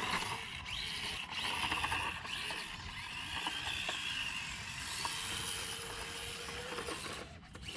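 Axial SCX24 micro RC crawler's small electric motor and drivetrain gears whining while it crawls over terrain. The pitch rises and falls with the throttle, and the whine drops away near the end.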